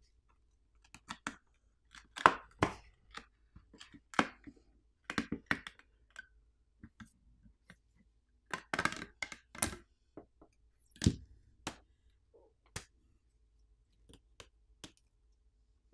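Irregular sharp clicks and crackles as a Nothing Phone 2a's heat-softened plastic back cover is flexed and worked free of its adhesive with fingers and a thin wire. They come in scattered clusters, thickest around two, four to six, and nine seconds in.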